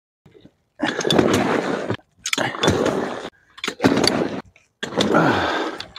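Mulch sliding and spilling out of a tipped plastic dump cart in four short bursts of rustling and clattering, each cut off abruptly.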